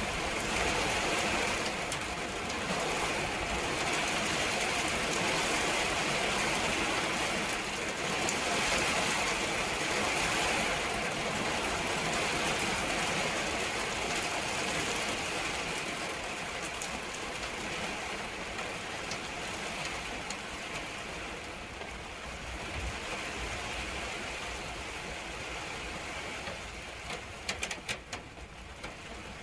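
Steady rain shower falling, easing slightly in the second half, with a few separate sharp ticks near the end.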